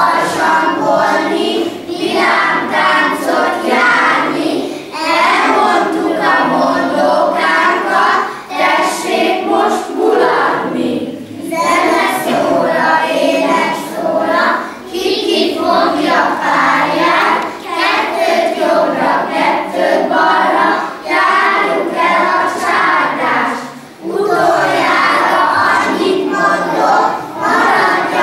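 A group of young kindergarten children singing a song together, in short phrases with brief breaks between them.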